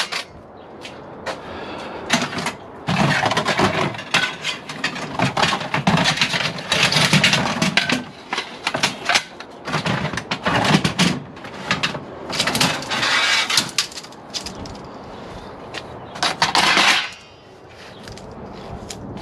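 Lengths of scrap aluminium extrusion being handled and loaded, clanking, scraping and rattling against one another in irregular bursts. The last loud clatter comes near the end, after which it turns quiet.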